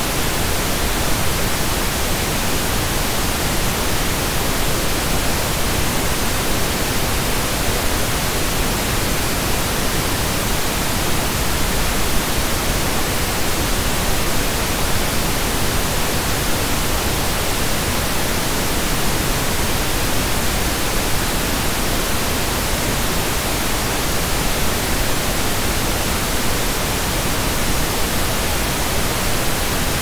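Pink noise test tone: a steady, even hiss spread across the whole frequency range, fuller in the lows than white noise, without any change.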